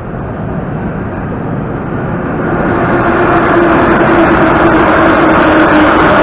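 Metro train approaching through the tunnel into the station: a rumble that grows steadily louder over the first three seconds, with a steady whine and sharp clicks setting in about halfway through.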